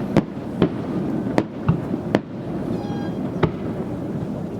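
Fireworks display: about six sharp bangs of fireworks bursting at irregular intervals, over a steady background rumble.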